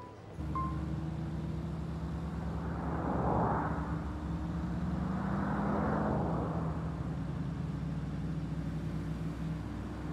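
A car driving along: steady low engine and road hum, swelling louder a few times as traffic goes by.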